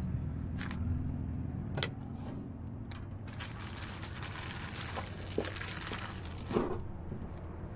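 A knife knocking on a plastic cutting board a few times while food is handled, with a stretch of plastic-bag rustling through the middle, over a steady low rumble.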